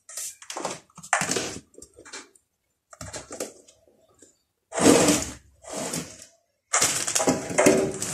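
Plastic storage canister and packets being handled and set down on a pantry shelf: irregular rustles and knocks of plastic, with a louder handling noise about five seconds in and again near the end.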